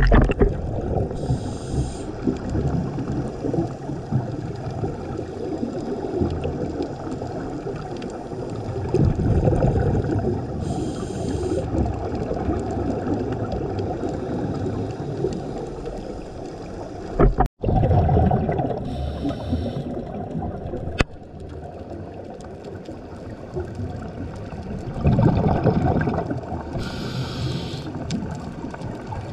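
Scuba diver breathing through a regulator underwater: a short hiss on each inhalation, four times, and bursts of exhaled bubbles rumbling, over a steady underwater wash.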